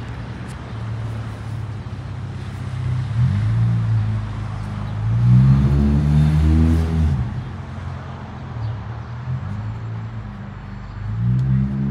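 Low engine hum of motor vehicles, swelling and rising then falling in pitch as a vehicle passes about five seconds in, and again near the end.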